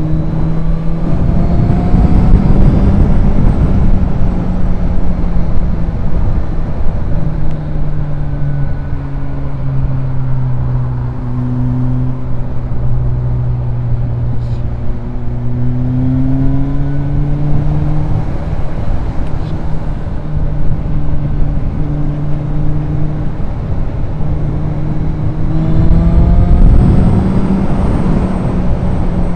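Motorcycle engine running at a steady cruise, heard from the rider's helmet camera under heavy wind rumble; the engine note rises and falls a little, and near the end the wind rumble swells and the pitch shifts.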